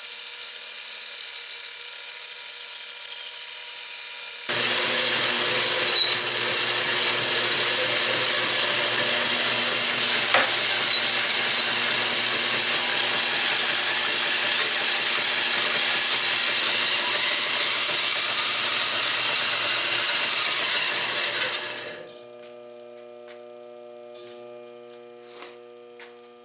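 Homemade treadmill-motor bandsaw mill running at slow speed with a steady hum. About four and a half seconds in, the blade bites into the wood and a loud, even sawing noise takes over for about seventeen seconds. The noise stops suddenly as the cut finishes, leaving the motor and blade humming quietly.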